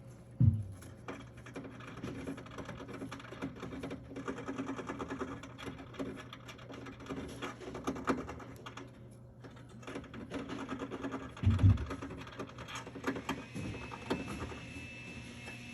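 A pet scratching rapidly at its cage, a fast rattling scrape with two loud thumps against the cage. Near the end a vacuum cleaner's steady whine starts up.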